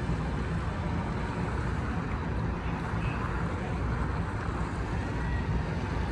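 Steady outdoor city background noise: a constant low rumble, like distant traffic with wind on the microphone, with no distinct events.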